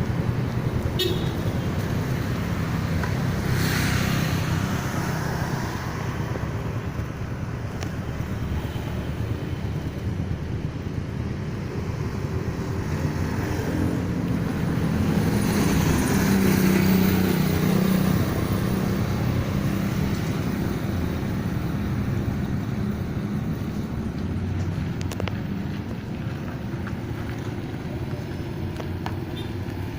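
Road traffic: motor vehicle engines running steadily with tyre and road noise. Louder swells come about four seconds in and again about halfway through, as vehicles pass.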